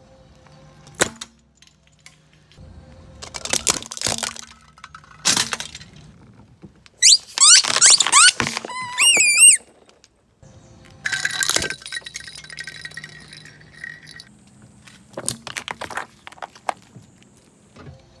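Brittle objects crunching and cracking as they are crushed, in several separate bursts with sharp snaps between them. A loud squealing, rising and falling in pitch, comes about seven seconds in and lasts a couple of seconds.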